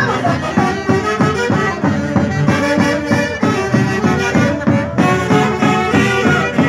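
Live Andean folk band playing an instrumental passage: saxophones and brass carry the melody over a steady drum beat, loud through the stage speakers.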